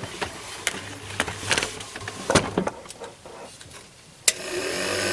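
A few scattered clicks and knocks, then about four seconds in a click and a bilge pump motor starting up and running with a steady whir, switched on in automatic mode through the newly replaced float switch.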